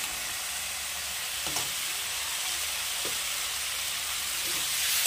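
Ivy gourd (kundru) and masala sizzling in a kadai while a metal spatula stirs them: a steady frying hiss with a few light knocks and scrapes of the spatula against the pan.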